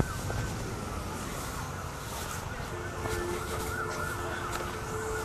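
Several emergency vehicle sirens wailing at once, their rising and falling tones overlapping, over a low rumble of wind on the microphone. A bit past halfway a steady two-note tone joins them.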